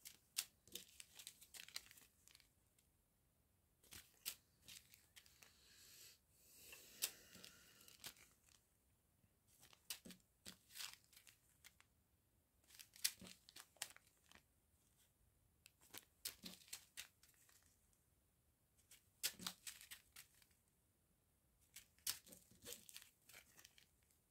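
Small plastic zip-lock bags of round diamond-painting drills crinkling and rustling in the hands, in faint scattered bursts of short crackles as they are picked up and turned over.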